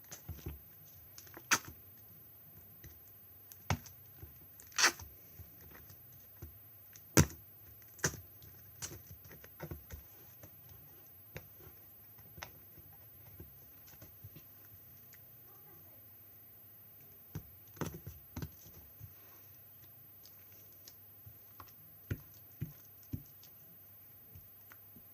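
Handmade glossy slime being squeezed and poked, giving sharp irregular clicks and pops, with a quieter stretch in the middle.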